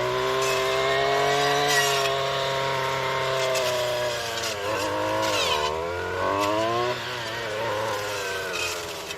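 Weed whacker fitted with a chainsaw-type blade running at high revs, its engine pitch sagging and recovering about halfway through and again soon after as the blade bogs into tough vines. Short sharp snaps of cut brush come in between.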